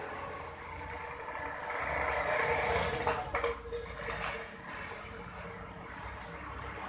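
Steady rushing of water and pump hum from aquarium filtration, swelling louder for about two seconds in the middle with a few light knocks.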